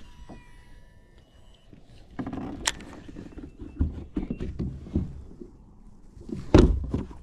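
Irregular knocks, bumps and rustling of a fishing rod, clothing and gear being handled against a kayak close to the microphone, with one loud thump about six and a half seconds in.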